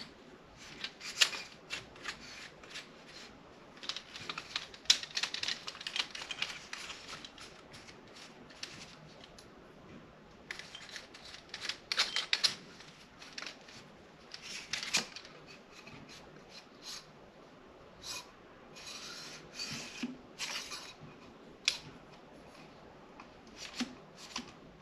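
Irregular clicks, rubs and scrapes of a camera tripod being handled by hand, its twist locks and centre column being turned and worked.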